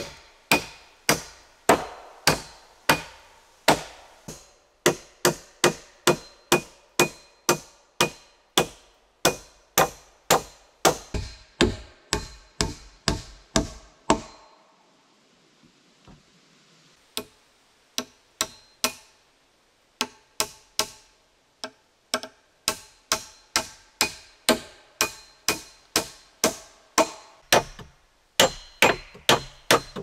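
Hammer driving nails into a wooden frame set in log framing: steady strikes about two a second, each with a light metallic ring. The strikes pause for about three seconds near the middle, then resume.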